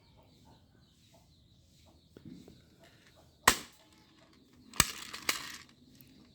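Toy gun being fired: two sharp shots about a second and a quarter apart, the second followed half a second later by a rougher, noisier crack. A faint handling sound comes about two seconds in.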